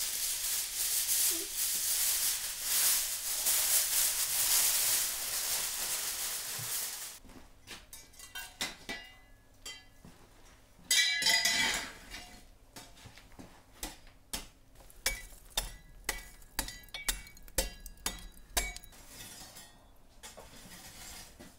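Aluminium foil and baking paper crinkling loudly as they are peeled off a roasting tray, for about seven seconds. Then a string of light metallic clinks and knocks, with a louder ringing clatter a few seconds later.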